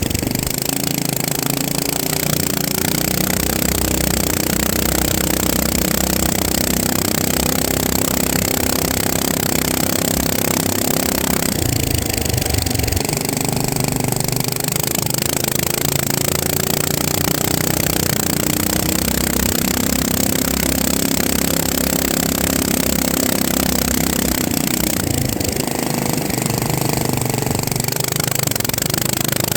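FPV drone's electric motors and propellers running steadily under a strong hiss of rushing air, the motor pitch shifting with throttle changes about twelve seconds in and again near the end.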